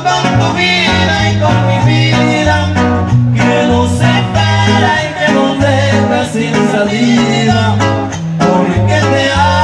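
Live huapango from a trío huasteco: a violin playing the melody over the strummed rhythm of a jarana huasteca and a huapanguera.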